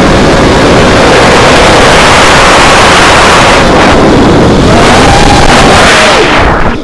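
Loud wind rush on an FPV quadcopter's on-board camera microphone, with a faint whine from the quad's motors that climbs in pitch about five seconds in and falls back. The sound drops away sharply right at the end.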